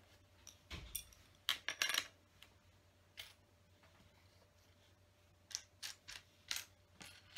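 Small plastic LEGO pieces clicking and clattering against each other and the table as they are picked out and pressed into place. There are several sharp clicks in the first two seconds and one near three seconds, then a pause, then a run of clicks near the end.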